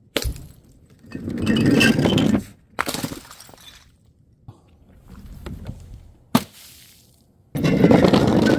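Glass breaking and shattering several times, crunching and clinking. A sharp crack comes near the start and another a little past six seconds, with bursts of shattering about a second in, near three seconds, and a long loud one near the end.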